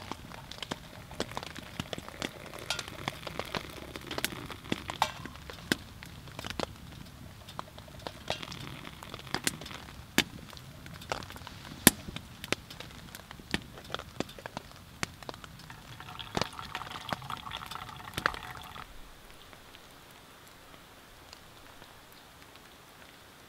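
Wood fire crackling and popping in a small titanium tent stove, with hot water poured from a kettle onto coffee grounds in a pour-over filter and fizzing as it soaks in. The crackle and pouring stop about nineteen seconds in, leaving only faint ticks.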